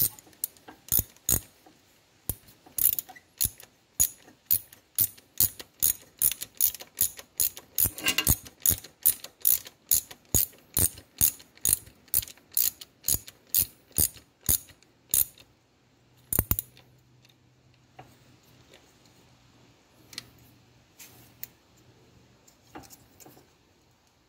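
Ratchet wrench clicking steadily, about three clicks a second, as it runs a socket on a long extension down onto a water-pump impeller nut. The run of clicks then stops, leaving only a few faint clicks.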